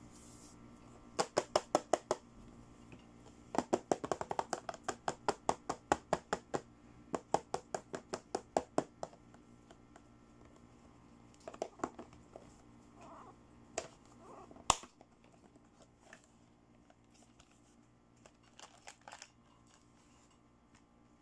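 Light, rapid clicking taps on a hard pink plastic toy beauty-set case as fingers tap and handle it: a short run of clicks, then a longer run of several clicks a second, followed by scattered clicks and one sharp click about 15 seconds in.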